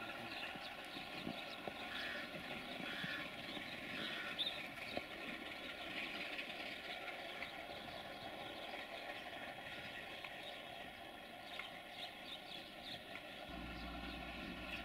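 Sulzer 12LDA28 twelve-cylinder diesel engine of an LDE2100 (060-DA) locomotive running steadily while shunting slowly, a drone of several steady tones. A low hum sets in near the end.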